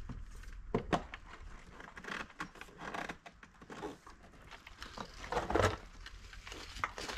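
Plastic shelving parts being handled and knocked together as the legs are pushed into the shelves: scattered light clicks and knocks, with louder knocks about a second in and again a little after five seconds.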